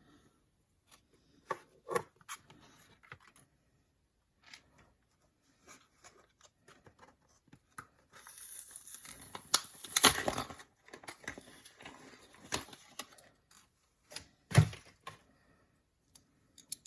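Packaging being torn open and crinkled by hand, with scattered clicks of handling and a single knock about two-thirds of the way through.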